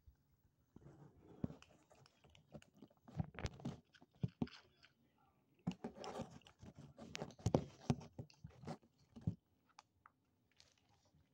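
Black-and-white kittens chewing food from a plate, close by: irregular clusters of short wet clicks and chews that thin out to a few faint ones about nine and a half seconds in.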